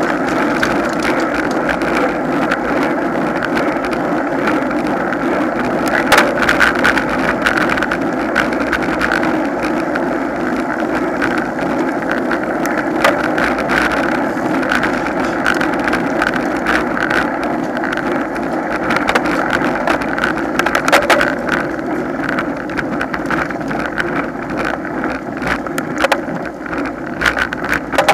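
Riding noise from a road bike in a pack of cyclists: a steady rush of wind on the microphone with tyre hum on the asphalt, and a few sharp knocks from bumps in the road.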